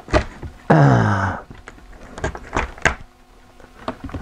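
Light wooden knocks and clicks as a maple Fender bass neck is pressed and shifted into the wooden neck pocket of a bass body, with a man's short groan falling in pitch about a second in.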